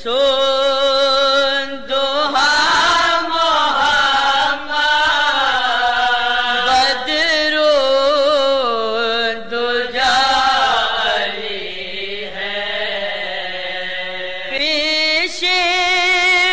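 A voice chanting a devotional manqabat in a long, drawn-out melismatic line. The pitch wavers and slides up and down over held vowels, with only brief breaks for breath, and drops lower near the end.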